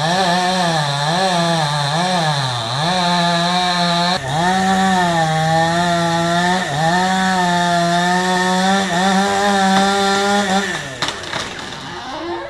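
Chainsaw engine revved up and down several times, then held at high revs with two brief dips. Near the end the revs drop away toward idle.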